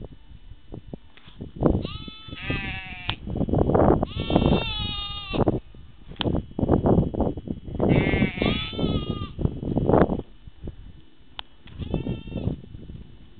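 A sheep bleating four times, in long wavering calls. Loud low rumbling noise on the microphone fills the gaps between the calls.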